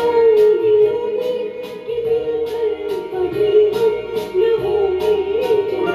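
Karaoke backing track of a Hindi film song: a held, wavering melody line over light percussion ticking about twice a second, between sung lines.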